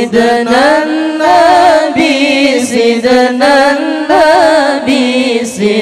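Zikir saman devotional chant: a lead male voice sings a long, ornamented line with pitch turns and trills over a group of voices holding a steady low note.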